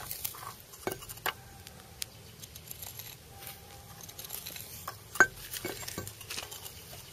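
Metal spoon scraping and clinking against the inside of a steel crucible, stirring and breaking up the reaction slag in mineral oil: scattered scrapes and knocks, the sharpest clink about five seconds in.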